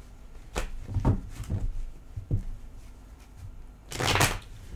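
A deck of tarot cards being handled: a few short clicks and soft knocks of the cards in the first couple of seconds, then a brief, louder rush of shuffling cards about four seconds in.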